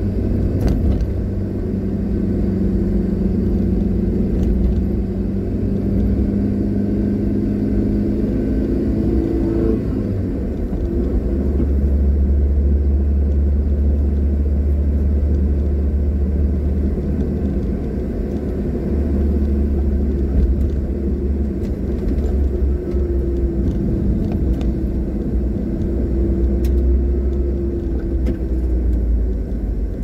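Car engine and tyre rumble heard from inside the cabin while driving at a steady pace; the engine's note changes about ten seconds in.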